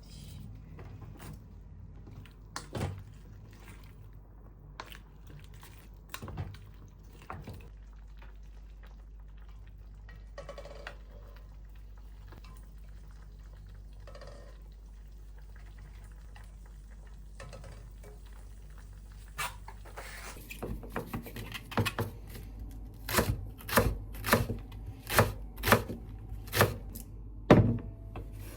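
Kitchen work sounds: scattered knocks and clinks of dishes and utensils over a steady low hum, turning into a busy run of sharp knocks in the last eight seconds or so.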